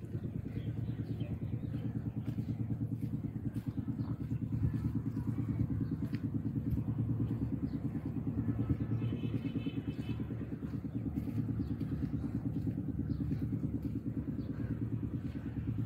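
Motorcycle engine running steadily while riding at low speed, a constant low drone of fast, even firing pulses.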